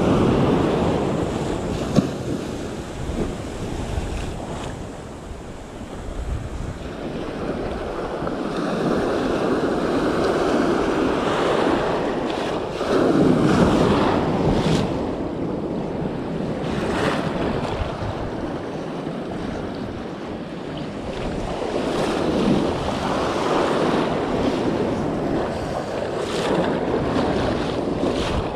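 Sea waves breaking and washing in surges against the shore, rising and falling every several seconds, with wind buffeting the microphone. A short sharp click about two seconds in.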